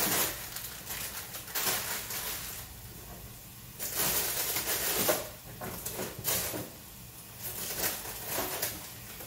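Plastic bags of frozen food crinkling and rustling in several irregular bursts as they are handled and shifted about.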